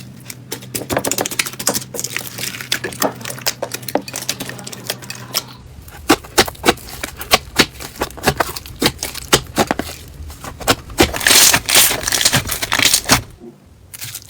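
Slime being squeezed and poked by hand, making rapid wet clicking and crackling pops that grow densest and loudest near the end.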